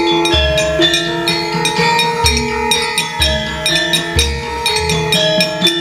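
Javanese gamelan ensemble playing: ringing bronze gong-chime and metallophone notes over low drum strokes about once a second.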